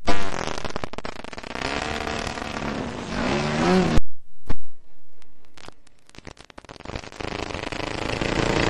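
50cc two-stroke petrol engine of a radio-controlled aerobatic plane running in flight, its pitch sweeping up and down as the plane manoeuvres. About four seconds in the sound drops away abruptly, with a couple of sharp knocks, and stays faint for a few seconds before the engine note comes back and grows louder toward the end.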